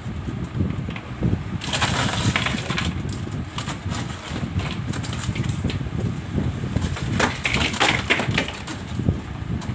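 Loosened ice being broken away and pulled out of a defrosted refrigerator freezer compartment: crunching and knocking throughout, with two louder scraping spells, about two seconds in and again around seven to eight seconds.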